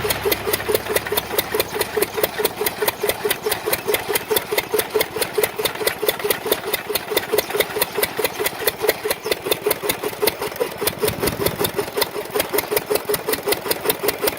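Single-cylinder engine of an old Ottawa drag saw running steadily with an even chug, about five beats a second.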